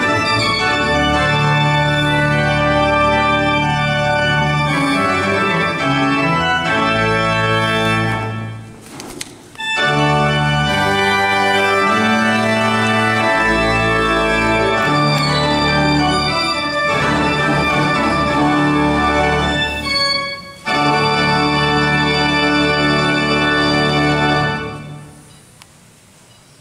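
Church pipe organ playing sustained full chords over a held bass, broken twice by short pauses. Near the end the last chord is released and dies away in the church's reverberation.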